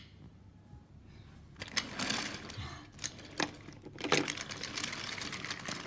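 Wooden toy train wheels clattering along wooden track as the engines and carriages are pushed by hand, in two rattling runs with a few sharp wooden knocks between them.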